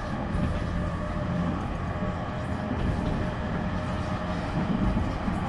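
JR East E231-1000 series electric train running, heard from inside the car: a steady rumble of wheels on rail with a thin whine from the traction motors and inverter.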